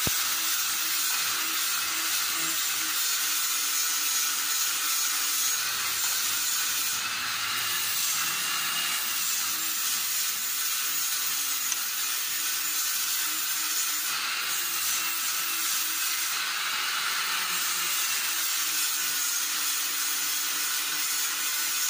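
Hand-cranked bamboo and rattan slicing machine running, its blades slicing bamboo into thin strips with a steady hissing rasp.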